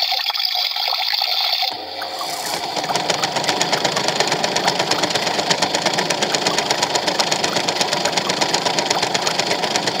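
Toy washing machine: a water-filling hiss for the first two seconds or so, then its small electric motor starts and turns the drum, running steadily with a fast, even clicking rattle.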